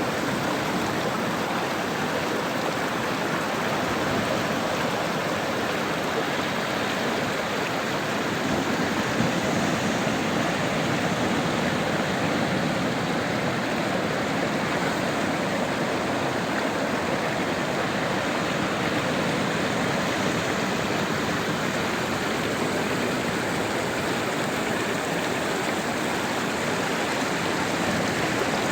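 Sea surf making a steady, even rush of water, with no separate waves standing out.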